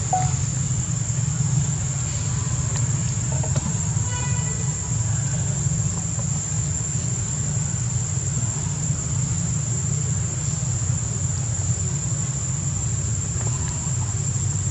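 Steady high-pitched drone of insects over a constant low rumble, with a faint short chirp or two about two and four seconds in.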